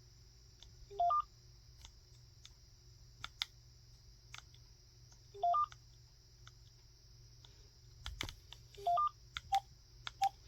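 DECT 6.0 cordless phone handset beeping as its keys are pressed: three short rising three-note chimes, about four seconds apart, then two single key beeps near the end, with faint button clicks between.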